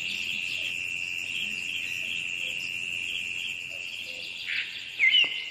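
Steady high-pitched insect trill, with a few short bird chirps coming in near the end.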